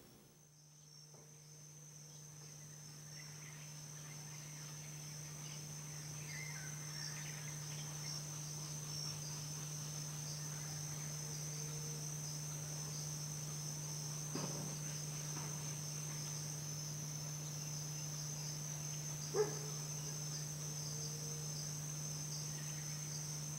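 Steady high-pitched insect chorus, crickets by its sound, fading in over the first few seconds over a low steady hum. A soft knock comes a little past halfway and a sharper one near the end.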